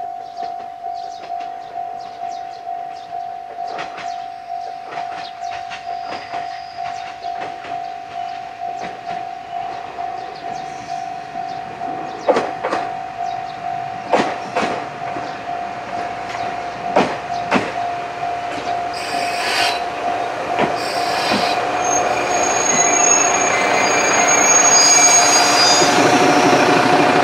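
Railway level-crossing alarm ringing in an even rhythm, a little under two dings a second, beside a stopped diesel railcar. A few sharp knocks come midway, and over the last several seconds the railcar's diesel engine grows steadily louder.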